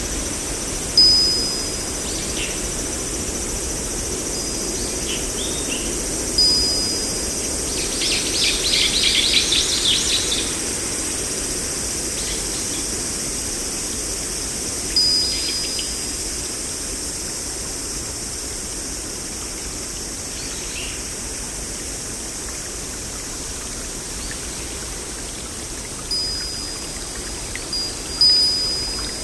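Birds calling over a steady rush of flowing water: short high whistled notes every few seconds, and a rapid trill about eight seconds in.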